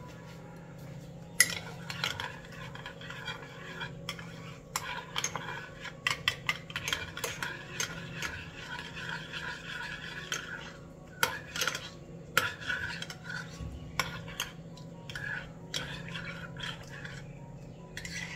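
A spoon stirring instant coffee in a cup, clinking against the sides many times in quick, uneven runs, over a steady low hum.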